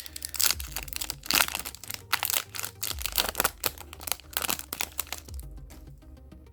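Yu-Gi-Oh trading cards and their crinkly booster-pack packaging being handled, with quick papery rustles and crinkles that thin out about five seconds in.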